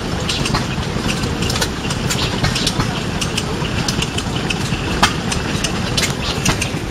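1958 Fordson Power Major's four-cylinder diesel engine idling steadily, with many irregular sharp clicks over the running.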